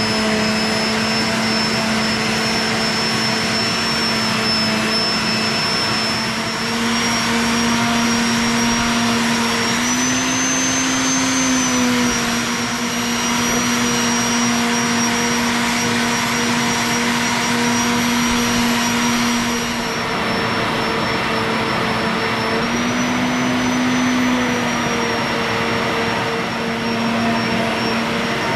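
Shop vac running steadily with a high motor whine, pulling air through a pegboard downdraft sanding box. The pitch rises slightly for a moment twice, once about a third of the way in and again near the end.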